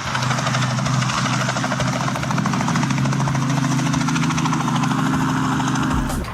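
Helicopter turbine and rotor running steadily, with a fast, even blade chop over a low hum; it cuts off suddenly near the end.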